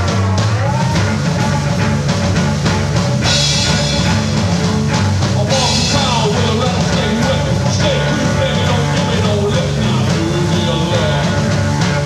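Blues-rock trio playing live: slide guitar soloing in gliding notes over a steady drum and bass groove, with two cymbal crashes a few seconds in.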